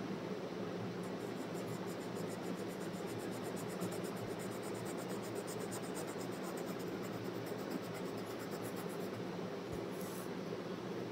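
Colored pencil scratching on paper in quick, even back-and-forth shading strokes, from about a second in until near the end, over a steady low hum.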